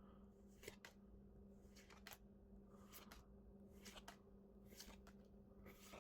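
Near silence: faint, scattered rustles and clicks of trading cards being handled and flipped through from a booster pack, over a low steady hum.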